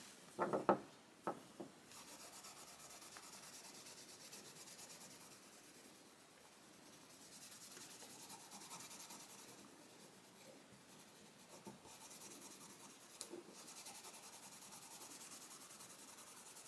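Grade #0 fine steel wool rubbing back and forth over a plastic screwdriver handle, scouring off the white bloom of decomposing cellulose acetate butyrate; faint and even, with a couple of short pauses. A few light knocks near the start as the tools are picked up.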